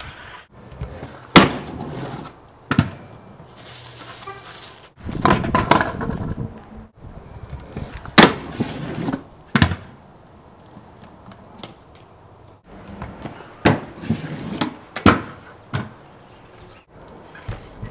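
Freestyle stunt scooter rolling on concrete and hitting a wooden box ledge: about half a dozen sharp bangs as the wheels and deck strike the box and land, with rolling and scraping noise between them.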